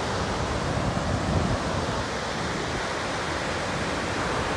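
Whitewater river rapids rushing steadily over rock ledges, a continuous even wash of water noise.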